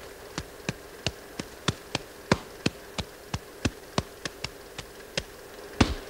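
A run of sharp, dry taps or clicks, about three a second at uneven spacing, the loudest one near the end.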